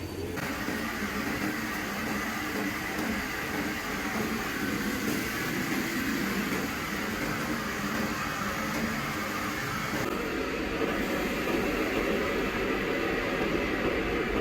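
Steady background noise with a low rumble, getting a little louder near the end.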